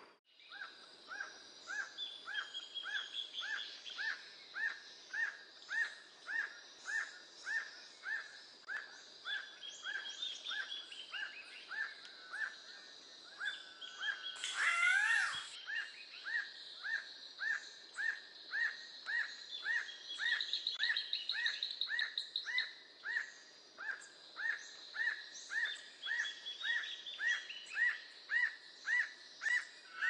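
Tropical forest birdsong: a short rising note repeated steadily about twice a second, with higher chirps from other birds. A fast trill comes in about two-thirds of the way through, and a louder rising call sounds about halfway.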